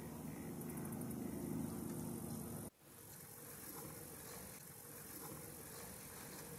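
A low, steady engine-like hum that cuts off abruptly a little under three seconds in, then carries on as a fainter steady hum.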